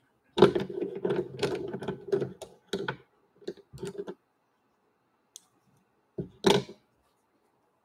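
Pastel sticks and pencils clattering against each other and the wooden easel ledge as a hand rummages through them: a quick run of clicks for the first few seconds, a few more after a pause, then a louder clack near the end.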